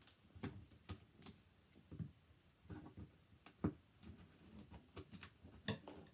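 A cardboard box being cut and opened with scissors: scattered light clicks, scrapes and rustles of tape and cardboard at irregular intervals.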